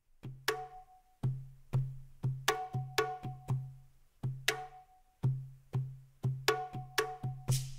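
Background music: a percussion track with a steady beat of low drum hits and short pitched wooden knocks, several a second.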